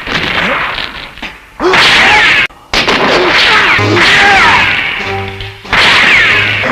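Spliced kaiju-movie fight sound effects: monster roars and shrieks that glide in pitch, mixed with crashes and impacts. The clips change abruptly, with a brief drop-out about two and a half seconds in.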